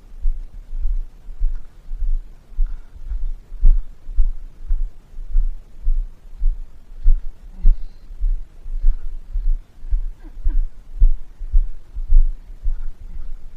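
Deep, even thumps about twice a second, typical of the footfalls of someone walking with a body-worn camera, heard as jolts through the mount.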